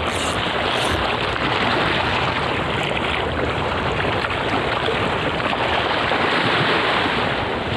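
Steady rush of wind and choppy sea water.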